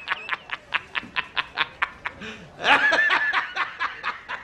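A man laughing hysterically in rapid staccato bursts, about five a second. The laugh breaks into a louder, high-pitched held shriek about three seconds in.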